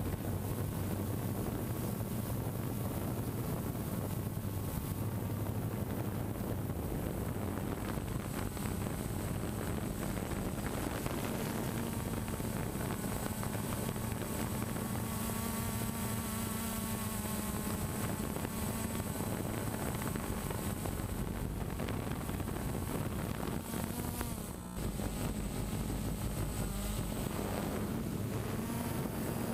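DJI Phantom quadcopter's four electric motors and propellers buzzing steadily in flight, heard from its own onboard camera, the pitch shifting as the throttle changes, with wind on the microphone. The buzz dips briefly about 25 seconds in.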